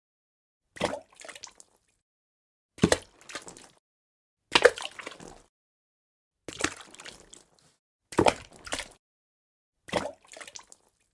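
Water dripping: six single drops fall about every two seconds. Each is a sharp drip followed by a few quieter splashes, with silence between drops.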